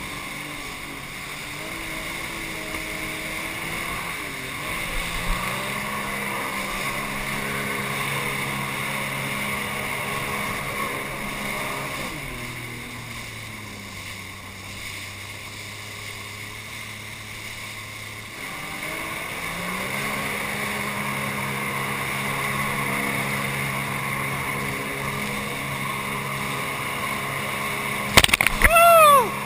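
Sea-Doo personal watercraft's engine running under way. The note drops lower and quieter about midway as the throttle eases, then picks back up a few seconds later, over the hiss of rushing water and wind. Just before the end a loud burst of spray washes over the camera.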